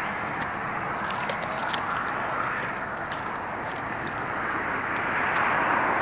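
Highway traffic running as a steady hiss that swells toward the end as a vehicle passes, under crickets calling on one high, unbroken note, with a few faint clicks.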